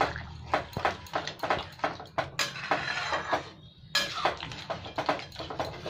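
Metal ladle knocking and scraping in a pan of chickpea curry as it is stirred: a run of irregular sharp clicks, with a longer rasping stretch about halfway.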